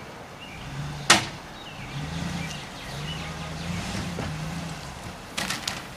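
Dodge pickup truck engine revving in surges as the truck pulls on a tree stump, with one sharp crack about a second in and a quick cluster of sharp clicks near the end.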